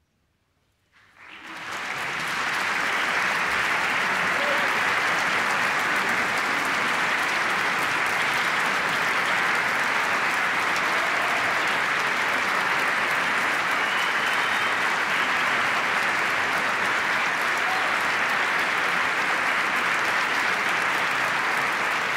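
Large audience applauding, breaking out from near silence about a second in, swelling to full within a second and then holding steady and dense.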